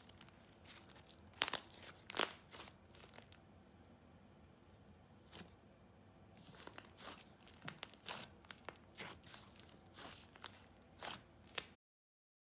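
Slime being played with by hand, squished, stretched and poked, making irregular sharp crackles and pops, the loudest two about a second and a half and two seconds in. The sound cuts off abruptly near the end.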